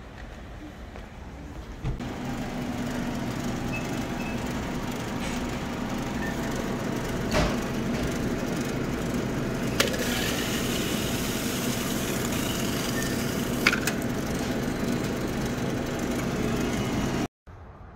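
Steady engine and road noise heard inside a moving car, rising slightly about two seconds in, with a few sharp clicks scattered through it; it cuts off suddenly near the end.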